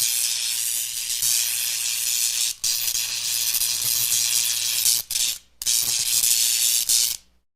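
Electricity sound effect: a loud, sizzling electric crackle like arcing, over a steady low mains-type hum, with a couple of brief cut-outs before it stops abruptly near the end.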